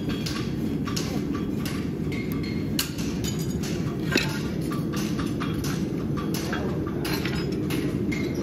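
Farriers' hammers striking steel, many light sharp taps and clinks at irregular intervals, one a little harder about four seconds in, over a steady low rumble.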